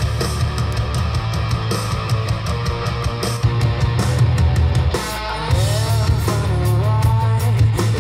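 Rock music with heavy bass and guitar played back through hi-fi loudspeakers in a room. Playback switches a few seconds in from Estonia 35AC-021 three-way speakers to AE Aegis Evo Three floorstanding speakers.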